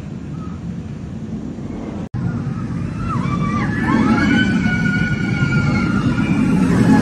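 Intamin stand-up roller coaster train rumbling along its steel track, with its riders screaming from about three seconds in as it passes through the loop. The sound cuts out for an instant about two seconds in.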